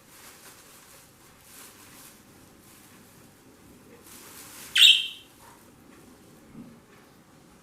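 A pet parrot gives one short, loud, shrill call about two-thirds of the way in, over faint rustling.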